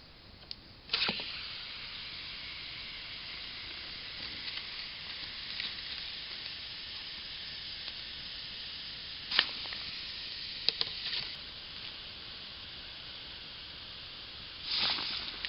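Water in a clay pot hissing and sizzling steadily as hot stones from the campfire are dropped in with bamboo tongs to heat it. A sharp knock about a second in starts the sizzle, a few smaller clacks follow later, and a louder splash-and-hiss comes near the end.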